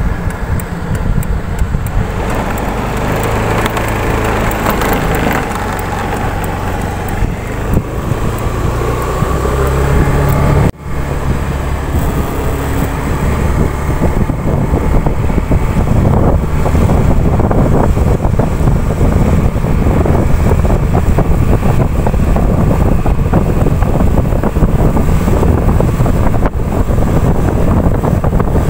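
Motorbike engine running as the bike rides along a road, with wind rushing over the microphone, the wind growing louder about halfway through.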